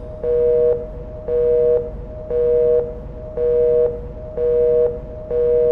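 Telephone busy signal: a two-tone beep, about half a second long, repeating about once a second, six times.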